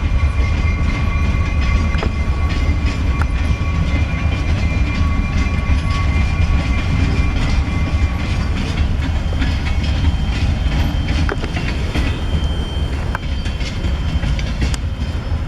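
Escanaba & Lake Superior freight train rolling past at close range: a steady heavy rumble with scattered clicks and clatter from the wheels on the rails, and a faint thin steady tone above it through the first half.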